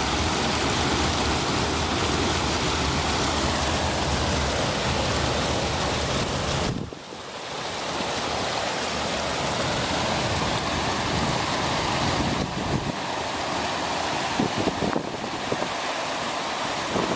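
Steady rush of flowing water, with strong wind rumbling on the microphone. The sound dips briefly about seven seconds in, and gusts knock at the microphone in low thumps near the end.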